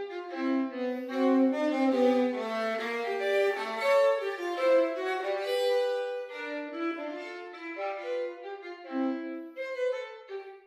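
Unaccompanied solo violin, bowed in a classical passage of notes that follow closely one on another, often two sounding at once. It plays louder in the first half and grows softer after about six seconds.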